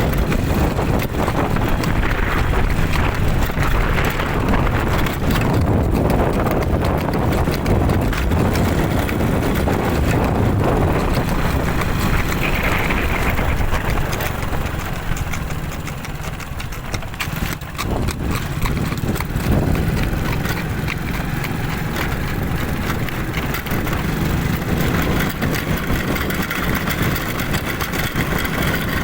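Horse's hooves striking the ground as it is ridden, over a steady low rumble.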